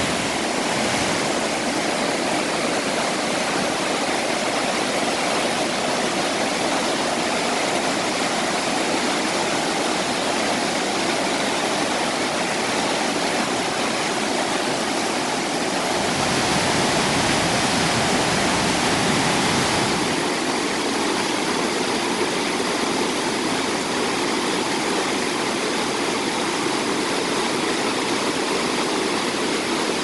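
Mountain river rapids rushing and churning over boulders, a steady full roar of white water that swells a little louder for a few seconds past the middle.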